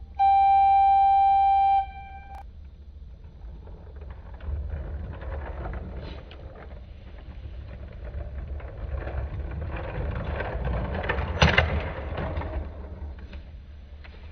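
A loud, steady horn-like tone held for about a second and a half, then a quieter rough noise that swells and fades like a car moving off, with a sharp click about eleven seconds in.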